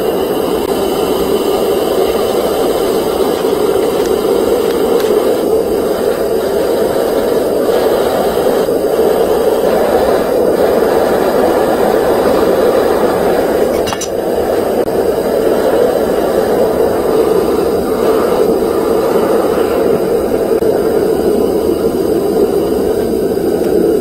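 Gas forge burner running with a loud, steady rushing of flame while a 440C stainless steel knife blade heats inside it for hardening. A brief dip and a faint click come a little past halfway.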